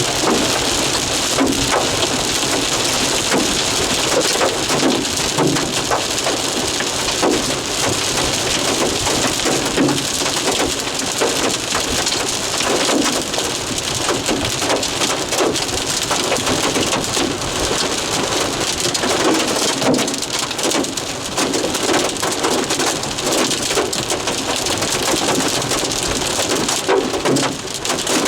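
Quarter-sized hail and rain pelting down steadily: a dense hiss with many sharp individual impacts of hailstones striking surfaces.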